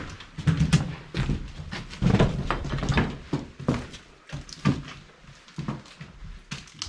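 Irregular knocks and thumps in a small room, several in quick succession in the first half and sparser after.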